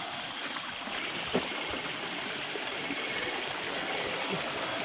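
Steady rush of water running in a small stream, with a single short knock about a second and a half in.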